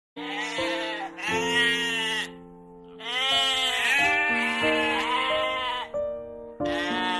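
A sheep bleating several times, in long calls, over background music with steady held notes.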